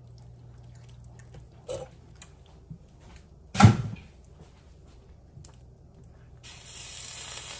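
One sharp thump about halfway through, then, near the end, a steady sizzle starts suddenly: creamy sauce splashed out of the frying pan while stirring is cooking on the hot stovetop.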